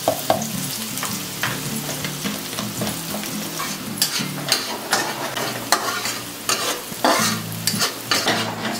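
Chopped onion, garlic and chili sizzling in hot oil in an aluminium wok, stirred with a metal spatula that scrapes the pan in repeated strokes. The scraping grows louder about halfway through.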